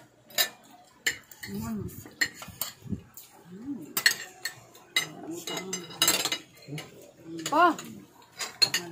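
Metal spoons and forks clinking and scraping on ceramic plates and bowls as people eat, in irregular clicks throughout. A few short vocal sounds come in between.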